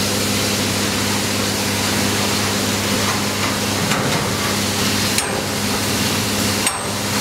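Fire engine's pump running steadily, a low hum under a broad hiss of water through the charged hose line, with short dips about five and about six and a half seconds in.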